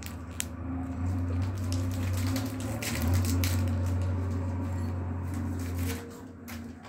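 Light crackles and crunches from an Oreo wrapper being handled and Oreo biscuits being eaten, over a low steady hum that stops sharply about six seconds in.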